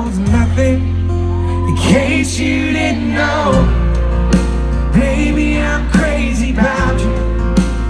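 Live country ballad played by a full band, with a male lead singer; the bass notes shift every few seconds under the vocal line.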